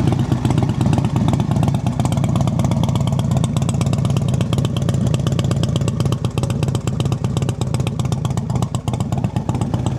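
2008 Fatbagger Razorback trike's Gems 120 V-twin engine idling steadily, with an even pulsing beat from its dual exhausts.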